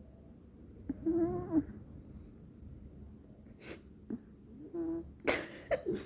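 Shih Tzu snoring in its sleep: several separate snoring breaths, some with a whistling, wheezy tone, the loudest a harsh snort near the end.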